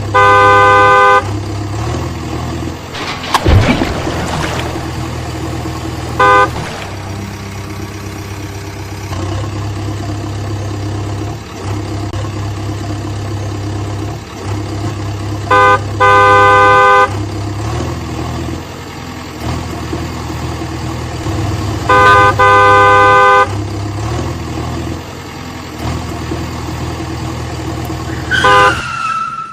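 Cartoon vehicle horn honking several times, usually a short toot followed by a longer honk, over a steady low engine drone. A falling whistle-like glide sounds near the end.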